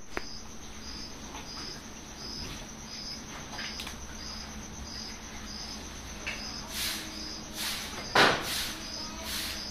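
A cricket chirps steadily, one short high chirp about every 0.7 seconds. In the second half a few short rustling noises come from the cow at her newborn calf, the loudest just past eight seconds.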